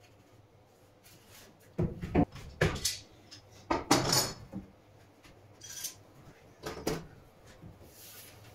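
Wooden boards and metal clamps knocking and clattering as they are handled and set against a wooden slab on a workbench: a string of separate knocks, most of them in the middle of the stretch.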